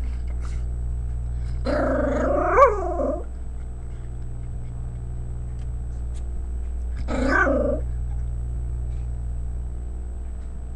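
Small Pomeranian dog growling twice: a longer growl about two seconds in that ends in a short bark, and a shorter growl past the middle. A steady low hum runs underneath.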